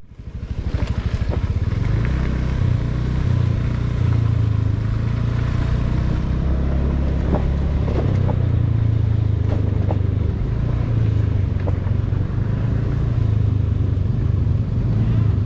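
Motorcycle engine running with a steady low drone.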